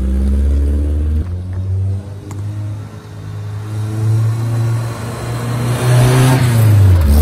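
1981 Toyota Corolla wagon's 1.8-litre 3T-C four-cylinder engine, fitted with aftermarket headers, driving off and then accelerating back up the street. The engine climbs in pitch as the car approaches, is loudest as it passes close about six seconds in, then drops in pitch as it goes by.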